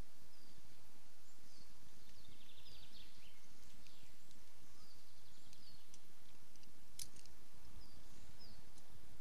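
A small bird calling outdoors, short descending chirps about once a second with a couple of brief ticking trills, over a low wind rumble on the microphone. A single sharp click about seven seconds in.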